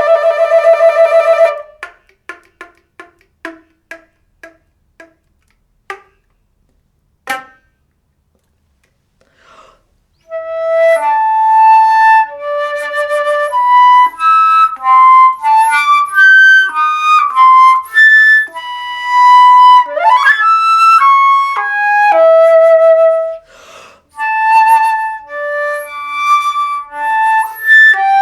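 Solo flute playing a contemporary piece: a held, rapidly pulsing note, then a string of short notes fading away over a few seconds. After a pause of about three seconds come quick passages of notes, with a fast upward slide about two-thirds through.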